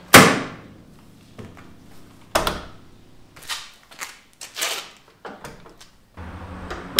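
Clunks and clicks from a Mercedes W124's body hardware as the bonnet is opened. A loud slam comes just after the start, then a run of lighter knocks and clicks, and another slam near the end.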